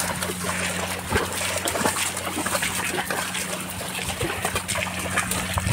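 Carabao (water buffalo) hauling a loaded wooden cart through deep mud: irregular squelching and splashing of hooves and wheels in the wet mud.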